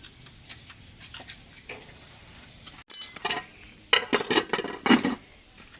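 Metal pots, plates and utensils clattering: a few faint clicks, then a cluster of loud clanks with a ringing tail between about three and five seconds in.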